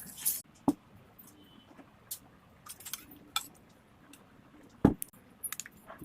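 Scattered clinks and knocks of kitchen utensils and dishes, the loudest about five seconds in, with a quick run of small clicks near the end.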